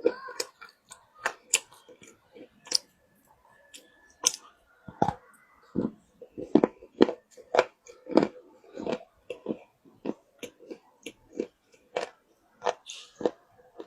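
Wet loess clay being bitten and chewed close to the microphone: a string of crisp, irregular crunches, about two a second.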